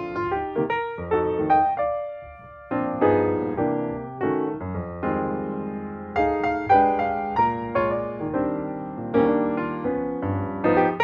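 Background piano music: chords and single notes struck and left to ring, with a short break about two seconds in.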